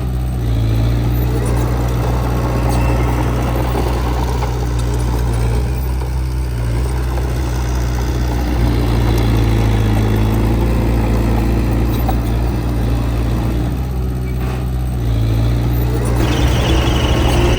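Diesel engine of heavy earthmoving equipment running under varying load, its low note rising and falling every few seconds. A higher-pitched whine joins near the end.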